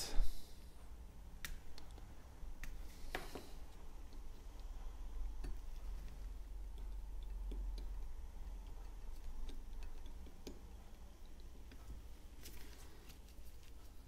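Scattered light clicks and scrapes of a metal dental hand instrument against a plastic composite syringe and a plastic test mould, over a low steady hum. The sharpest clicks come right at the start and about three seconds in, with a run of faint scratchy ticks near the end.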